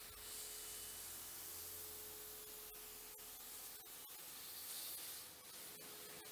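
Pressure washer spraying water over a van's windscreen and bonnet to rinse off snow foam: a steady hiss, with a thin steady tone underneath.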